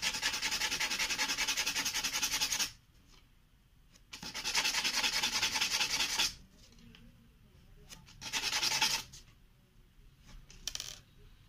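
A golden shower tree (Cassia fistula) seed rubbed rapidly back and forth on 220-grit emery paper, in three bouts of fast rasping strokes, the last one short. The hard seed coat is being scarified so that the seed can take up water and germinate.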